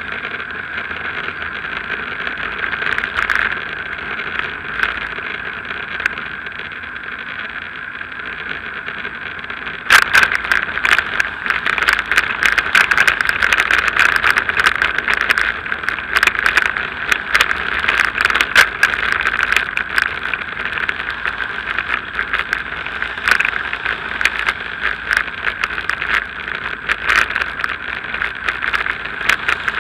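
Riding noise of a bicycle on a tarmac road, heard through an action camera carried on the ride: a steady hiss of tyre and wind noise. From about ten seconds in it turns louder, with constant rattling and clicking from the bike and camera mount shaking over the road surface.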